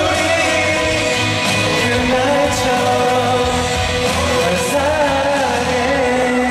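A man singing a pop song live into a handheld microphone over backing music, holding long notes.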